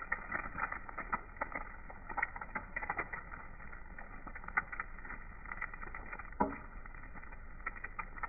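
Egg frying in hot oil in a black frying pan: a steady sizzle full of small crackling pops, with a metal spatula scraping and pressing against the pan. A single louder knock comes a little over six seconds in.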